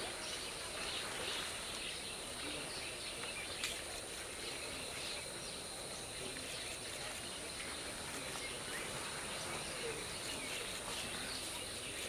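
Outdoor natural ambience: a steady high-pitched insect drone, with birds chirping here and there and one sharp click a little under four seconds in.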